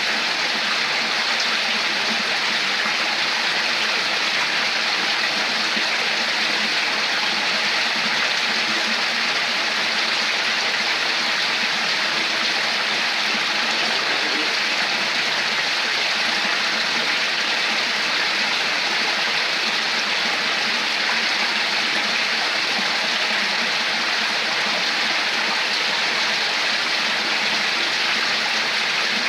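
Steady rush of flowing water, like a stream running over rocks, even and unbroken.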